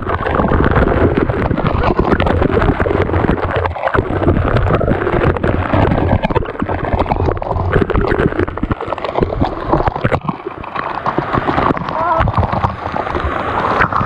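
People's voices over a steady rush of splashing water from a waterfall.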